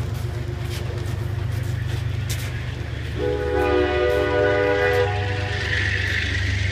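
Metro-North Hudson Line commuter train departing: a horn sounds one blast of about two seconds, starting about three seconds in, over the steady low rumble of the diesel locomotive. A hiss rises near the end.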